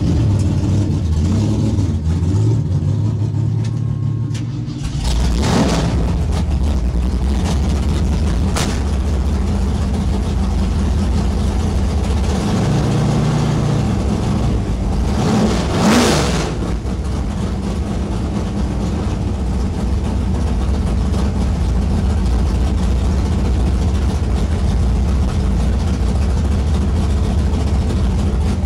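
Drag-racing Ford F-150's engine running at idle, heard from inside the cab, with two brief louder surges about five and sixteen seconds in.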